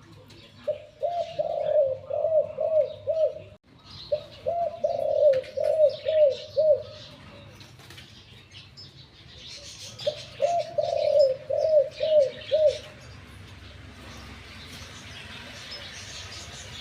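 Spotted dove (decoy bird) cooing: three phrases of deep coos, each a longer opening note followed by a quick run of short coos, from a bird the seller calls a big-voiced "three-kuk" caller.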